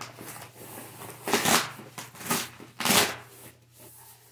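Brown corrugated cardboard shipping box being torn open by hand, in three short ripping bursts about a second and a half, two and a quarter, and three seconds in.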